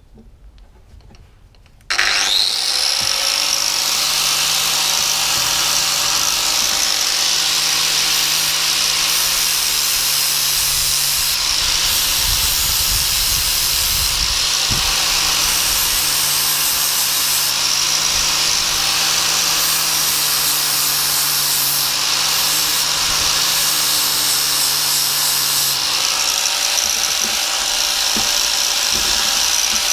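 Angle grinder switched on about two seconds in, spinning up to a steady high whine, then grinding the steel teeth of a hedge trimmer blade with a flap disc to sharpen them.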